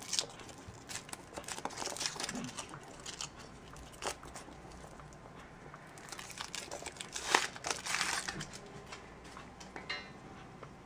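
Foil wrapper of a Kinder Surprise egg being torn and peeled off, crinkling in irregular bursts, with the loudest crackling about seven to eight seconds in.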